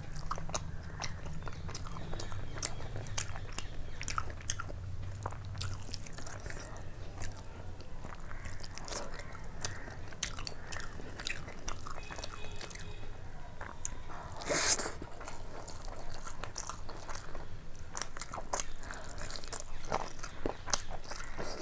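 Close-up eating sounds: a person chewing and biting mouthfuls of fried rice and chicken curry eaten by hand, with many small wet clicks and crunches and one louder burst of noise about two-thirds of the way through.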